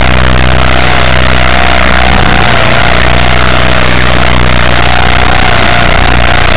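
Electric motor whine and rotor noise of a Walkera radio-controlled model aircraft in flight, heard as a whine that wavers slightly in pitch over a steady low hum. The recording is very loud and distorted.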